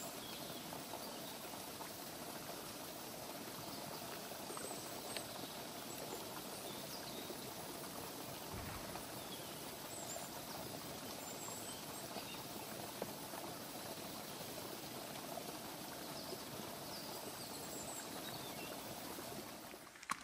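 Steady rush of running water, with small birds chirping now and then above it. The sound cuts off abruptly at the very end.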